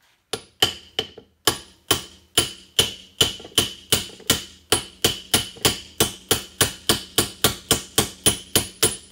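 Hammer tapping on a socket to drive a main bearing out of the Norton Atlas's heated alloy crankcase half: a steady run of sharp metallic taps, about three a second, each with a short ring.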